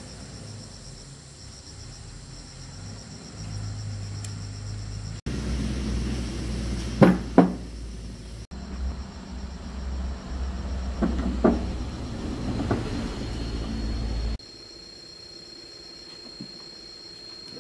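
Workshop sounds in short edited clips: a steady low mechanical hum with a few sharp knocks, the loudest a pair about seven seconds in.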